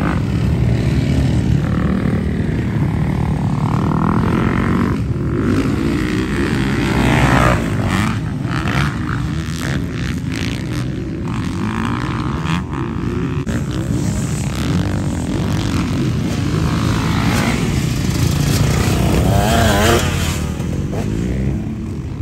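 Several motocross dirt bikes running around a track, their engines revving up and down as riders accelerate out of turns and over jumps.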